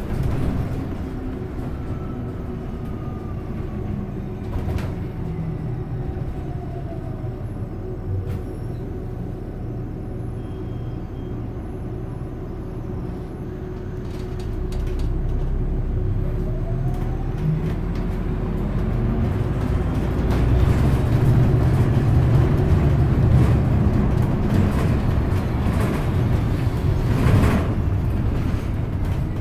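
Ride noise inside a city bus underway: steady engine and road rumble that grows louder about halfway through, with a few knocks and rattles from the body.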